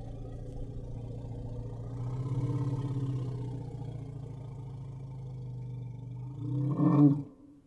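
Elephant making a long, low rumbling call that swells in the middle, then rises in pitch into a short, louder roar near the end that cuts off sharply.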